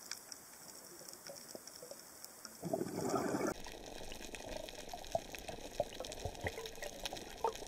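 Underwater recording: faint scattered clicks, then a diver's exhaled bubbles gurgling for about a second. After an abrupt change, a dense crackle of clicks over a steady hiss.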